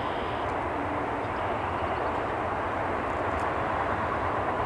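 Double-stack container cars of a freight train rolling past: a steady rumble of steel wheels on the rails.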